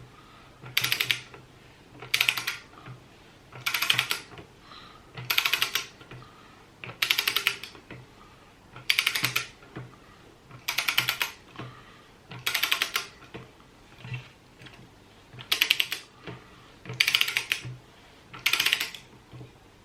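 Ratcheting torque wrench clicking in short bursts, about one every one and a half to two seconds, as it is worked back and forth to tighten a cassette lockring.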